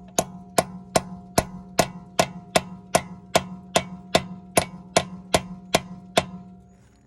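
A hammer striking a steel extractor socket over and over, about two and a half blows a second with a short metallic ring after each, to drive the socket onto a locking wheel lug nut whose key has broken. The blows stop a little after six seconds in.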